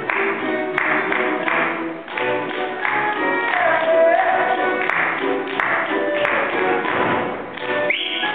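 A live folk band playing a fast Slovak (Šariš) dance tune with an even, driving beat, with the dancers' feet tapping and stamping in time. A rising whistle starts near the end.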